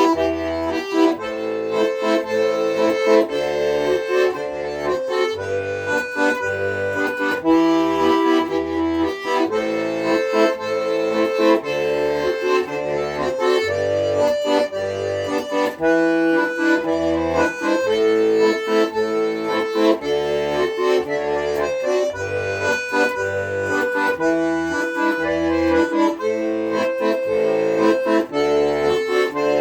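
Accordion playing an instrumental passage: held melody notes and chords over a steadily alternating bass.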